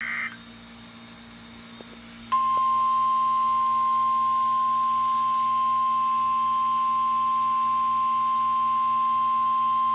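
NOAA Weather Radio warning alarm tone: a single steady 1050 Hz beep that begins about two seconds in and holds, signalling an urgent warning broadcast, here a tornado warning. Before it, a brief burst of tones right at the start and then faint radio hiss.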